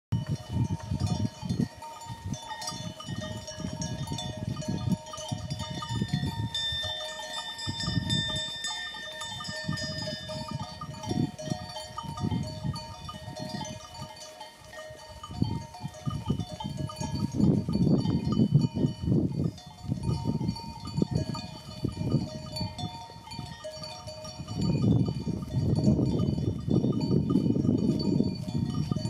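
Bells on a grazing flock of sheep clinking and ringing at several pitches throughout, with low rumbling gusts of wind buffeting the microphone, loudest twice in the second half.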